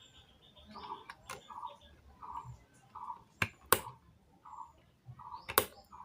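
Small birds chirping in short repeated calls, about one or two a second, with a few sharp clicks near the middle and end.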